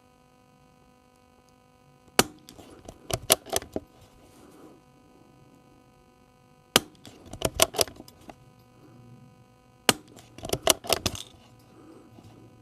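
Three suppressed shots from a Tikka T1X bolt-action .22 rimfire rifle with a Gemtech suppressor, a few seconds apart. Each shot is followed by a quick run of metallic clicks as the bolt is worked to chamber the next round.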